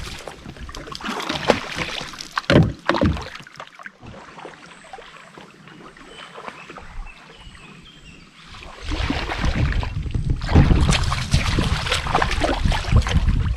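Knocks and splashes in and against a canoe for the first few seconds, then a quieter stretch. From about nine seconds in, a loud steady rushing noise, heaviest in the low end.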